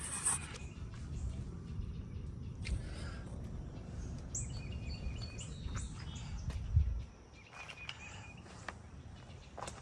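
Small birds chirping now and then over a low rumble; the rumble drops away about seven seconds in.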